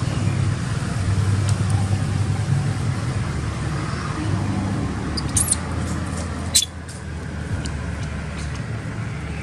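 Steady low rumble of outdoor background noise, with a brief high chirp about five and a half seconds in and a single sharp click a second later.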